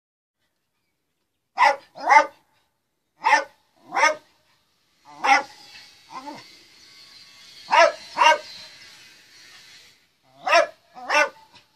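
Jack Russell terrier barking: about ten short barks, mostly in pairs, with pauses of a second or more between the pairs.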